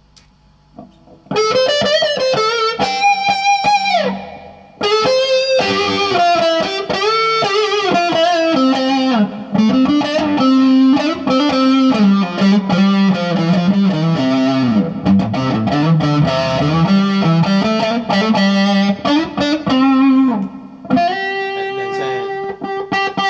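Gibson Les Paul electric guitar through an amp, playing a single-note lead line in a 'woman tone', with vibrato and slides on held notes. It starts about a second in and breaks off briefly about four seconds in.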